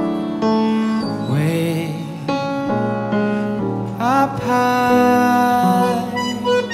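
A man sings a ballad into a microphone, with piano accordion and electric guitar accompaniment. The voice slides between long held notes over sustained chords.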